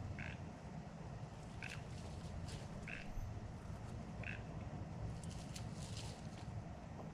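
Short, high animal calls repeating about every second and a half, frog-like, over a steady low rumble, with a few light clicks in the middle.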